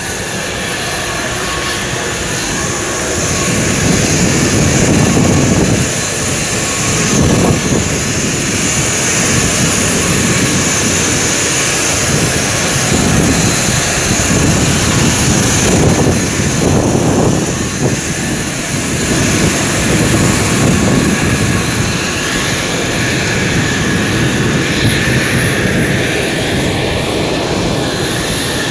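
Airliner jet-turbine noise: a steady high whine over a loud rushing hiss, with an uneven low rumble that swells and fades.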